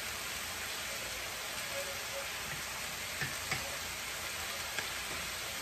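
Chicken pieces and sliced onions sizzling steadily in a stainless steel skillet as they brown, with a few faint clicks around the middle.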